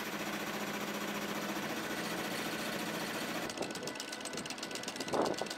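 A small sailing yacht's inboard engine running steadily. About three and a half seconds in, the tone changes and a fast, even chugging comes through more clearly.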